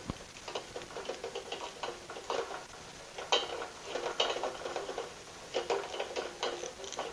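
A red LPG gas regulator and a flexible gas hose being handled and pushed together: irregular small clicks, taps and rubbing as the hose end is worked onto the regulator's outlet.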